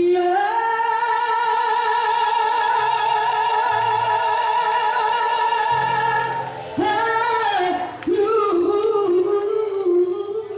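A woman singing live into a microphone, holding one long note for about six seconds before going on with the melody in shorter, wavering phrases.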